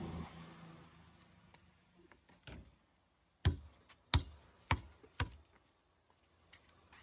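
A basketball being dribbled, bouncing on the ground five times, each bounce a little sooner than the last. The second and third bounces are the loudest.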